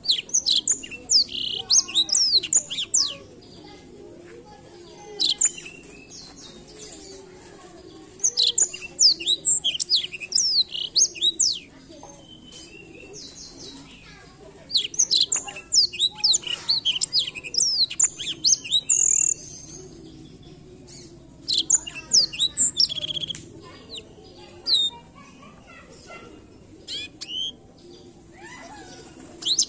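Blackthroat (black-throated canary) singing: bursts of rapid, high, sweeping twitter, each phrase lasting from under a second to about four seconds, with short pauses between.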